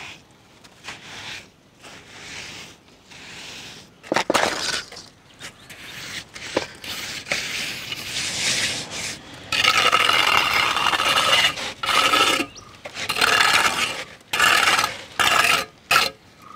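A steel mason's trowel and gloved hands scraping and smoothing wet cement mortar over a brick rim in repeated scraping strokes, which grow louder about ten seconds in.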